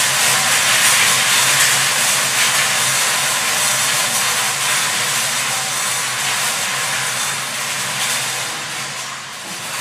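Five hand-cranked wire lottery cages spinning together, the numbered balls tumbling and rattling inside in a dense, steady clatter that eases a little near the end.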